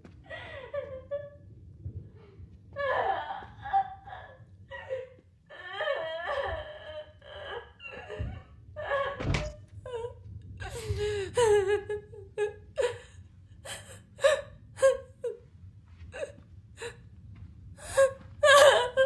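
A woman sobbing and whimpering in short, wavering cries, broken by sharp gasping breaths. A dull thud comes about nine seconds in.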